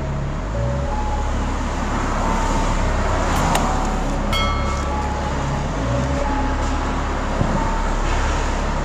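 Steady low engine drone and road noise heard from inside a vehicle's cab.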